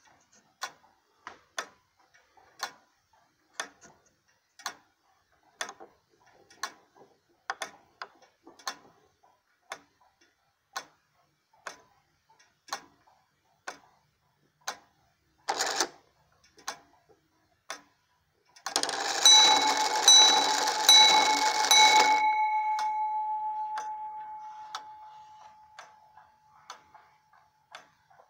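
Circa-1790 Gideon Roberts wooden-movement tall case clock ticking about once a second at its metal escape wheel. After a brief rattle about halfway through, the strike train runs with a loud whir of the gears and several strikes on the bell, the last ringing out for a few seconds before the ticking goes on alone.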